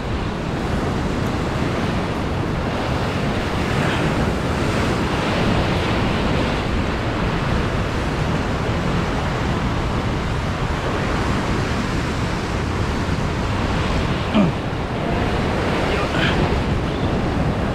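Ocean surf breaking and surging against a rocky shore, a steady rush of water.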